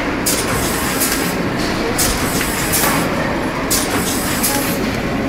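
An eight-station rotary bag-feeding pouch packing machine running: a steady mechanical din with short hisses about once a second, typical of its pneumatic valves venting air as the stations cycle.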